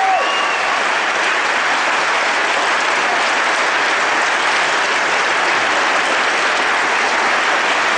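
A large theatre audience applauding: dense, steady clapping from many hands, held at an even level throughout, a standing ovation at the end of the show.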